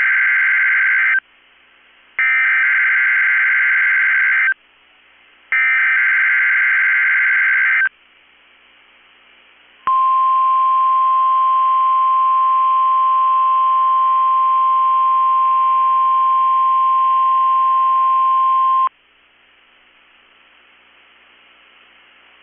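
NOAA Weather Radio alert signals for a Required Weekly Test: the end of one burst of SAME digital header data, then two more buzzy, screeching data bursts of about two seconds each, followed about ten seconds in by the steady 1050 Hz warning alarm tone, held for about nine seconds before it cuts off sharply.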